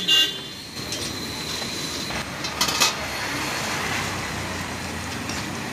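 A steel lid clanks on a large cooking pan with a brief metallic ring. Two more sharp metal clanks on the pan follow a little before the middle, over a steady background hiss.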